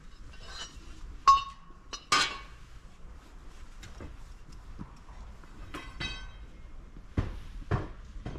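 A few sharp metallic clinks, each ringing briefly, then two sharp knocks about half a second apart.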